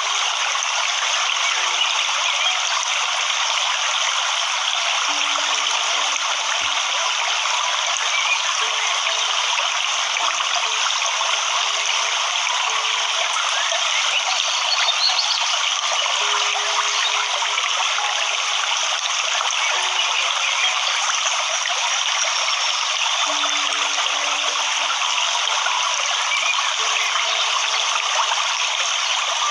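Waterfall: a steady, even rush of falling water, with brief low tones now and then.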